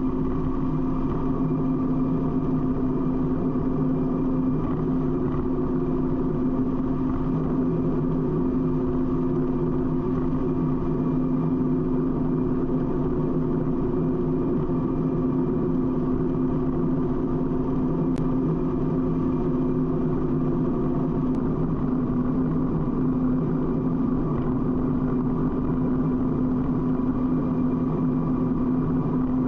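Harley-Davidson's V-twin engine cruising at a steady highway speed, its pitch holding constant, over a constant rush of wind and road noise.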